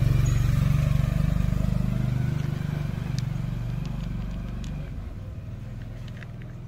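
A motor vehicle's engine drone, loudest at first and fading steadily away. A few faint sharp clicks come over it from about halfway through, the crunch of a cat chewing dry kibble.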